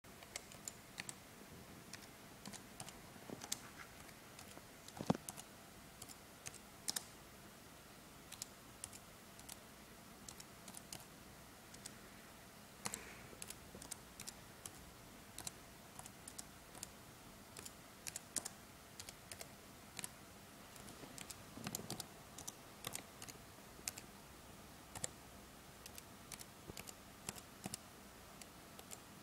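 Typing on a computer keyboard: irregular key clicks, a few a second, in runs with short pauses between words.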